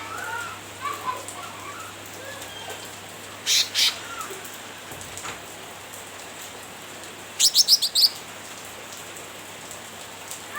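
Cucak ranting bulbul calling in its chattering 'nyrecet' manner: a few soft gliding notes at the start, two loud harsh calls about three and a half seconds in, and a quick run of about six sharp notes near eight seconds, over a steady hiss.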